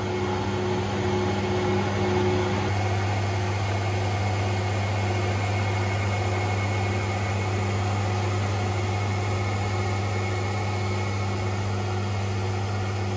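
Coin-operated car floor-mat cleaning machine running as a textile mat is fed through it to be wetted, brushed and dried: a steady motor hum with even noise over it, growing a little louder nearly three seconds in.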